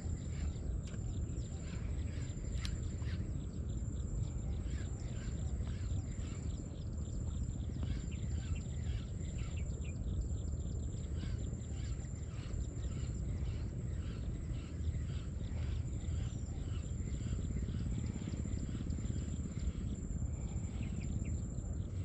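Open-air pond-side ambience: a steady low rumble of wind on the microphone under a high, pulsing insect trill and scattered short bird chirps.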